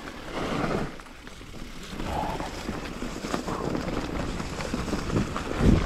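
Wind buffeting the microphone over the rumble and crackle of an electric mountain bike's tyres rolling across a dirt trail covered in dry leaves.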